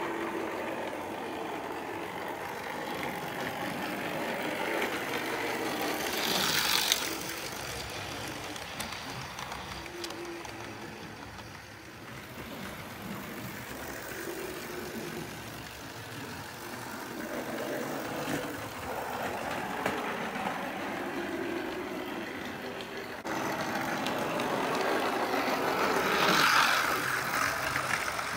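Hornby Dublo 00 gauge model trains running on the layout's track, a steady mechanical running noise that swells as a train passes close, about seven seconds in and again near the end.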